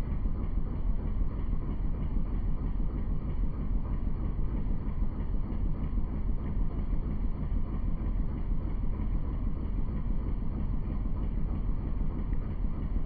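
Steady low rumble of a boat under way on a river: its engine droning evenly, mixed with wind on the microphone.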